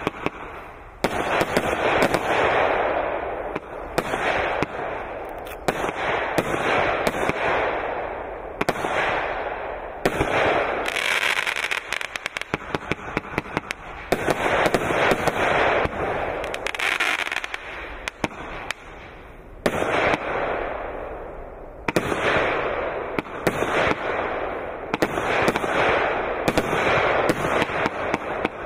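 Consumer firework cake (a single-fuse automatic compound firework) firing shot after shot: sharp launches and bangs come every couple of seconds, with rapid volleys of pops and a hissing, crackling fall-off after each burst.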